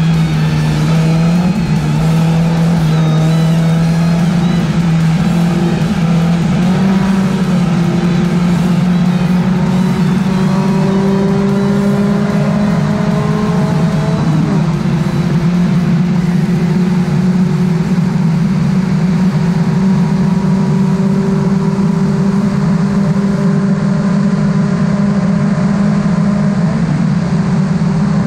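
VITA-01 race car's engine heard from inside the cockpit at racing speed, pulling hard under load with its pitch climbing slowly, dropping once for a gear change about halfway through, then climbing again.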